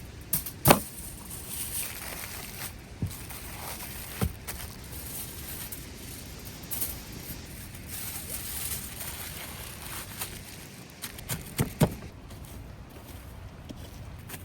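A handful of sharp knocks and clicks, loudest near the start and again as a close pair near the end, over a steady outdoor hiss.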